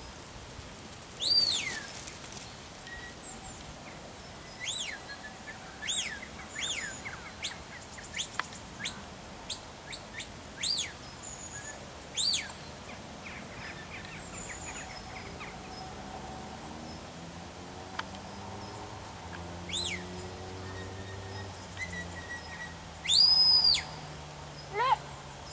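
Shepherd's whistle commands to a working sheepdog: a series of short, clear whistled notes that rise and fall, spaced irregularly, with a longer and much louder note near the end.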